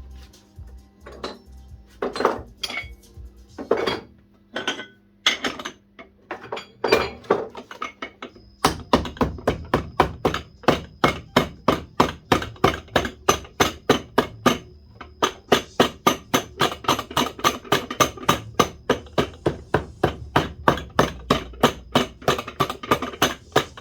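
Shoemaker's hammer striking a freshly glued leather sole against the welt to bond it: a few scattered blows, then steady hammering at about three blows a second from about nine seconds in.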